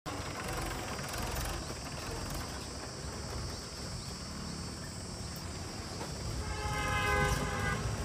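Mahindra tractor's diesel engine running steadily as it pulls a trolley loaded with earth. About six and a half seconds in, a held, pitched tone like a horn comes in over it and is the loudest sound.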